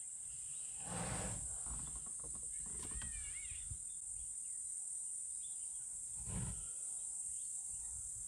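A steady, high-pitched insect chorus shrilling without a break.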